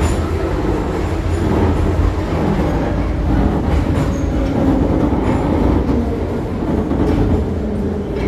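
Metro train running, heard from inside the car: a steady loud rumble of wheels and running gear with a faint whine through it.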